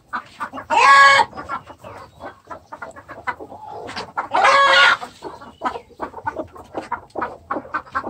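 Village chickens clucking steadily, with two loud, ringing calls about a second in and again about four and a half seconds in.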